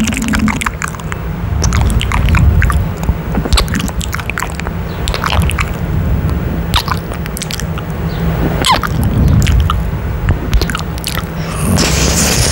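Close-mic ASMR kissing: wet lip smacks and kisses right against a condenser microphone, irregular sharp clicks over a low breathy rumble, with a short breathy hiss near the end.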